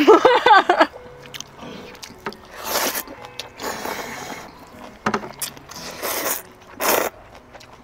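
Noodles being slurped in several short, noisy bursts, with a brief vocal sound at the start.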